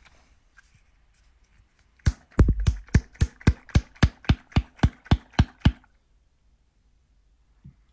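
A blue-capped glass lab bottle of salt and alcohol being shaken hard, giving a run of sharp, regular knocks about four a second for three or four seconds. The shaking speeds up the reaction between the salt and the alcohol.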